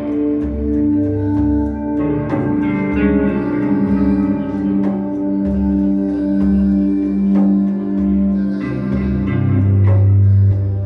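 Live ambient music: plucked notes ringing out with echo over held, pulsing low tones, with a deep bass note swelling in near the end.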